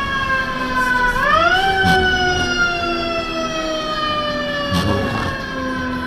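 Fire truck siren wailing: its pitch rises quickly, once just as it begins and again about a second and a half in, then falls slowly and steadily over the next few seconds.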